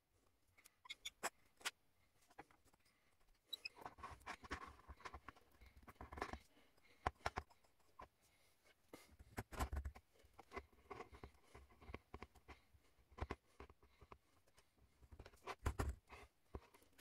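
Glued wooden discs being slid onto a threaded steel rod and pressed into a stack: scattered light clicks and scrapes of wood on wood and metal, with two dull knocks as the stack is set down on the wooden worktop.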